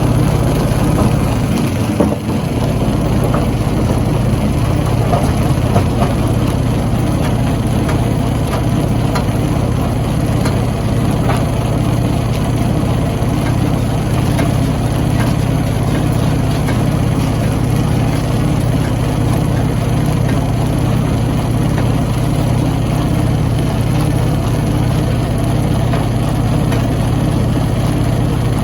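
Stone crushing machine running with a loud, steady low drone, with a few sharp knocks, the clearest about two seconds in.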